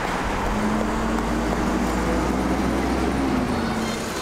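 Road traffic: a motor vehicle's engine runs past with a low rumble and a steady hum that fade about three and a half seconds in.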